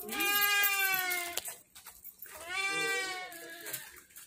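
Peafowl calling twice: two long, drawn-out calls, the first falling slightly in pitch, the second rising and then falling.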